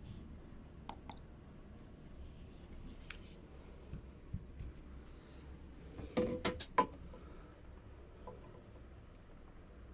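Bosch GLM 500 laser distance meter being operated: a button click and a short high beep about a second in. Then a quick cluster of hard plastic knocks around six seconds in as the tool is handled against a surface, over a low steady hum.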